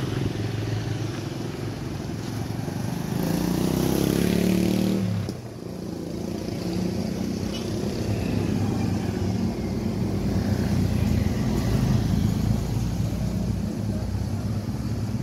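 Motorcycle engines running as traffic crosses over the level crossing. One passes louder from about three to five seconds in, and then the sound drops off sharply.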